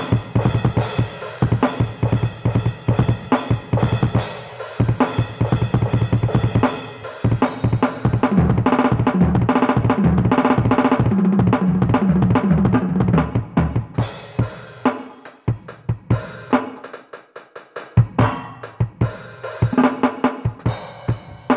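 Background music of a drum kit playing alone, bass drum and snare in a busy, steady pattern; about two-thirds of the way through it thins to a few scattered hits, then the full beat comes back.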